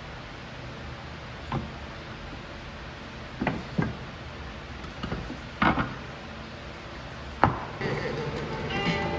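MDF boards being handled and set down on a worktable: about five sharp wooden knocks spread over several seconds, the loudest near the end, over a steady low background hum.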